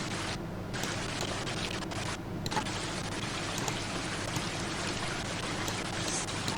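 Steady rushing noise with faint scattered ticks; its hiss cuts out briefly twice in the first half.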